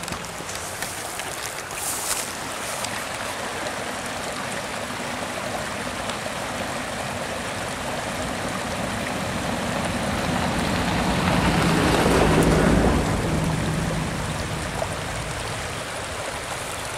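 Shallow, low-running creek water trickling over rocks, a steady rushing hiss. About two-thirds in, a low rumble swells and fades over a few seconds.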